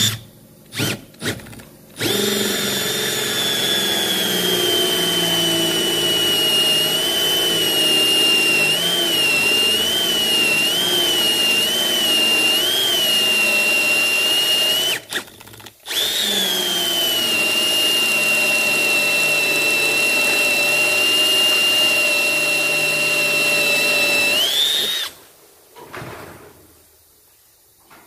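Milwaukee M12 FPD brushless hammer drill boring a 35 mm multi-purpose hole saw into softwood. A few short trigger blips come first, then the motor runs under load for about thirteen seconds with its whine wavering in pitch, pauses for a second, and runs again for about nine seconds before cutting off. At its maximum 35 mm capacity in wood the drill struggles noticeably.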